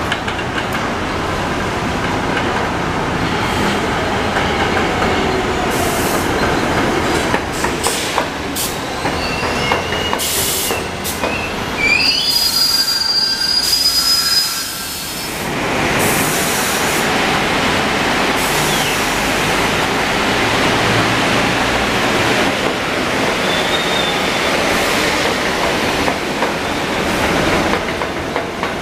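New York City Subway R62A train running along elevated tracks, with steady wheel and rail rumble and clicking over the rail joints. High-pitched wheel squeals cut in about ten seconds in and last for several seconds, with a shorter squeal near the end.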